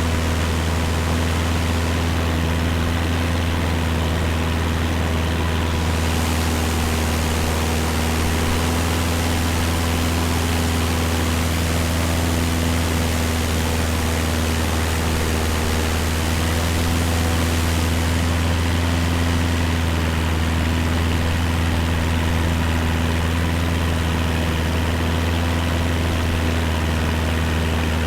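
Cessna 172's piston engine and propeller droning steadily in flight, heard on board the plane, with an even rush of air noise that grows brighter for a stretch in the middle.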